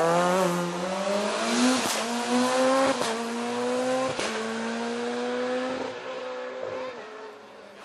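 Peugeot 207 rally car's engine accelerating hard out of a hairpin, the revs climbing and snapping down through three quick upshifts, each with a short crack, then fading as the car draws away.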